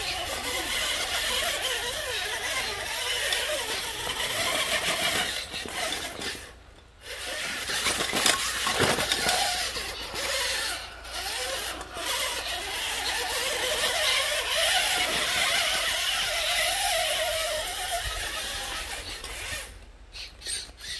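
Electric drivetrain of a 1/8-scale custom rock crawler RC car whining under load as it crawls over rocks, the gear whine rising and falling in pitch with the throttle. It briefly drops away about a third of the way in and again near the end.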